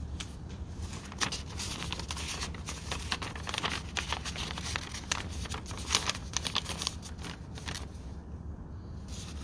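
Rustling and crackling close to the microphone: a run of quick irregular crackles and clicks, strongest in the middle, over a steady low room hum.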